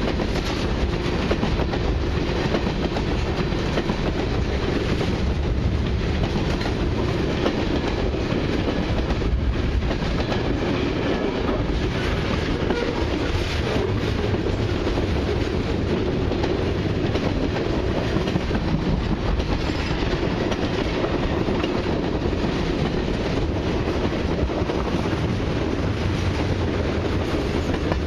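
Freight cars of a long mixed freight train (tank cars, flatcars and autoracks) rolling past close by: a steady rumble with the clickety-clack of steel wheels on the rails.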